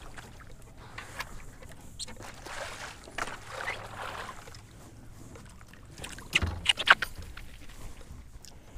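Kayak paddle strokes: the blades dip and pull through the water, with dripping and small splashes. A cluster of sharp knocks about two-thirds of the way through is the loudest sound.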